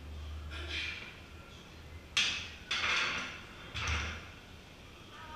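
Four hard, breathy exhales from an athlete catching her breath between lifts, the last three in quick succession, over a low steady hum.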